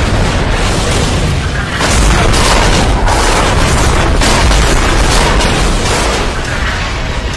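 Explosions of a missile strike on a group of tanks: one long, loud rumbling boom, with a second surge about two seconds in.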